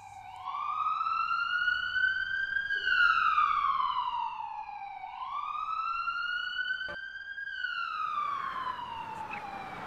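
Ambulance siren wailing. Its pitch glides slowly up and back down twice, each rise and fall taking about five seconds.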